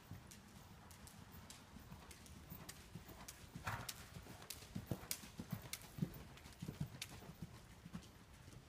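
A horse's hooves striking the arena footing at the canter, a run of soft hoofbeats that grow louder as it passes close by in the middle and fade again as it moves away near the end.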